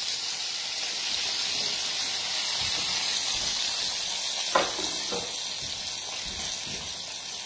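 Batter-coated cauliflower florets deep-frying in hot oil in an electric deep fat fryer: a steady sizzling hiss.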